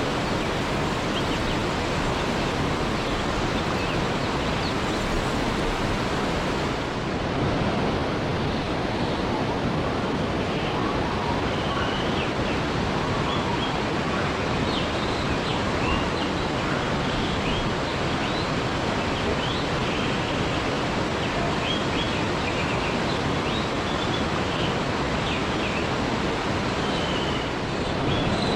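Waterfall: a steady rush of falling water, with scattered short, high chirps over it from about ten seconds in.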